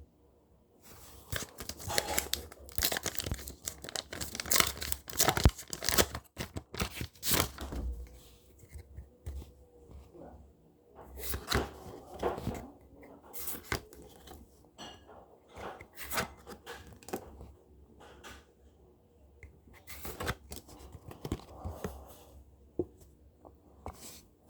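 Paper wrapping of a handmade trading-card pack being torn open and crinkled, in irregular rustling, crackling bursts with short pauses between.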